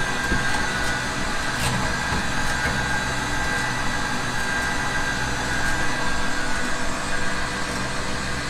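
Electric winch motor running steadily on the down button, lowering a suspended mower deck on its cable. A constant hum with a thin high whine.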